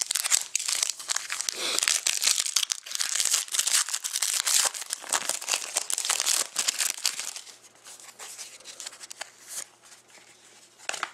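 Shiny foil wrapper of a Panini Rookie Anthology hockey card pack being torn open and crinkled by hand, a dense crackling for about seven seconds. It then drops to quieter light rustles as the cards are handled.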